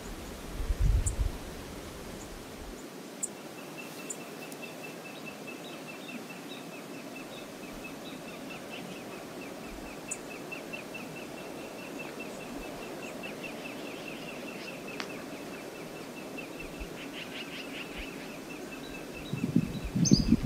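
Steady rush of river water, with a fast, high ticking repeating from about three seconds in, and low rumbling thumps about a second in and again near the end.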